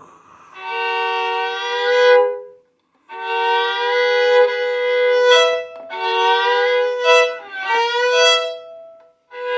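Violin bowing sustained double stops in thirds: four long strokes, each swelling louder toward its end, with the upper note shifting on some of them. The resonance and overtones are played up in imitation of a bell.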